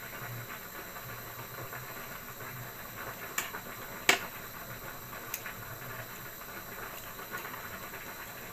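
Steady hiss of a pot of spaghetti water boiling on the stove, with a few light clicks, the sharpest about four seconds in.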